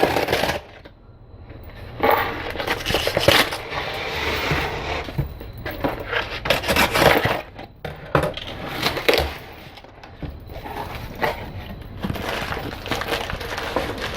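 Shipping packaging being torn open and handled: crinkling, tearing and rustling in irregular bursts, with brief pauses between them.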